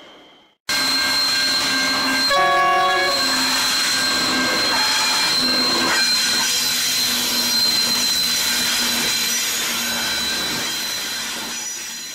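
Pacific National NR class diesel-electric locomotives approaching with a freight train, engines running, with a steady high-pitched squeal over the train noise. About two seconds in, the leading locomotive sounds one short blast of its multi-note horn.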